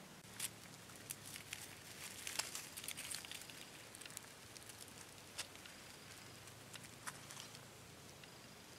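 Faint crackling and rustling of dry leaf litter. There is a dense run of small crackles about two to three seconds in, then a few scattered single clicks.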